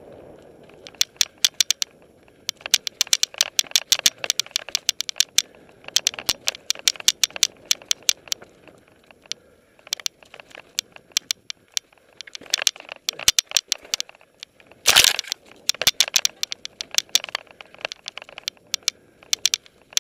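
Mountain bike ridden over rough, rocky dirt singletrack: rapid, irregular clicks, knocks and rattles as the bike and camera are jolted by the trail surface, with one louder jolt about fifteen seconds in.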